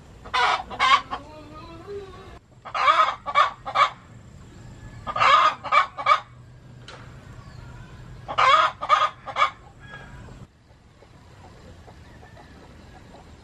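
Chicken calling in four loud runs of three or four short notes, about every two and a half seconds, over a faint steady low hum that stops near the end.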